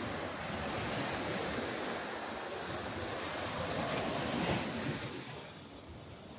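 Surf washing onto the beach: a steady rush of waves that swells to a peak about four and a half seconds in, then falls away.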